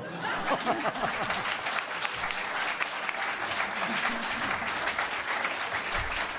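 Audience applauding: dense, steady clapping that starts as the speech stops, with a few voices heard over it.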